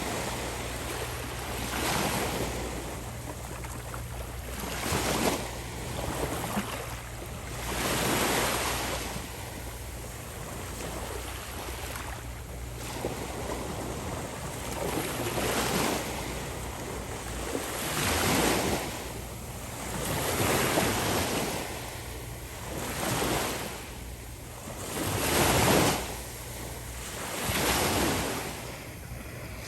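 Small ocean waves breaking on the shore one after another, a swell of surf every two to three seconds.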